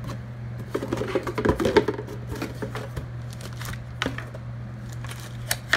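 Unpacking handling noise: a cardboard box and its molded plastic packaging insert being handled, rustling, with scattered light clicks and knocks and one sharper knock near the end. A steady low hum runs underneath.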